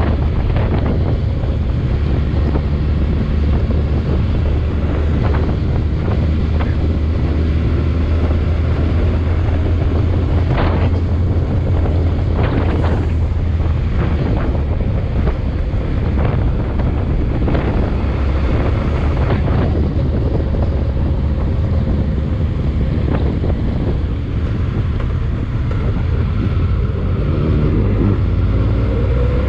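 Vehicle on the move: heavy wind noise on the microphone over a steady low engine rumble, with scattered short knocks. Near the end the engine pitch rises as it accelerates.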